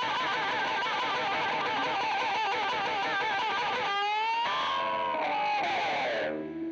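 Background music: a distorted electric guitar holds a long note with wavering vibrato. About four seconds in it slides and winds down in falling notes, then fades out at the very end.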